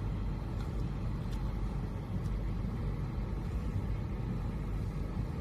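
Portable neck fan running, a steady low rush of airflow that cuts off suddenly at the end.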